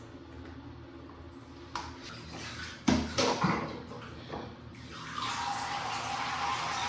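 A few knocks about three seconds in, then water starting to run steadily about five seconds in.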